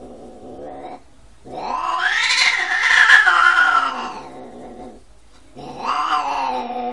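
Domestic cats caterwauling while mating: a low moaning call, then about a second and a half in a long, loud yowl that rises and falls over some three seconds, and another yowl starting near the end.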